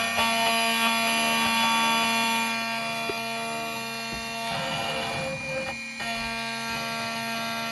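Xhorse Dolphin key-cutting machine milling a key blade: its spindle motor runs with a steady whine, turning rougher and noisier for a moment about five seconds in.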